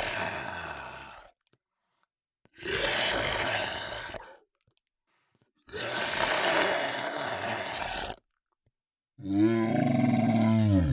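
Monster sound effects: three harsh, raspy creature roars, each one to two and a half seconds long and separated by short silences, then a deeper, tonal roar whose pitch drops as it ends.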